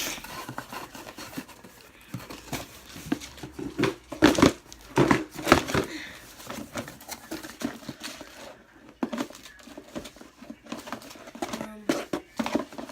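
Crinkling and rustling as things are handled, in irregular bursts, loudest about four to six seconds in.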